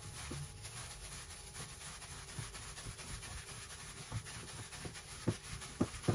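A hand in a plastic glove kneading minced meat with parsley, onion and spices in a stainless steel bowl: soft squishing and rubbing, with a few sharper thuds in the last second or so.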